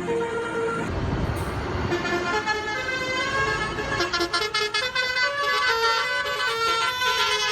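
Bus 'telolet basuri' multi-tone horn playing a tune, one note after another. A low engine rumble runs beneath it for the first few seconds.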